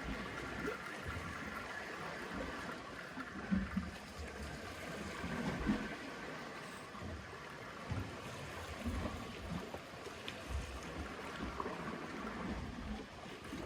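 Gentle sea water lapping and gurgling around rocks, with irregular low bumps throughout.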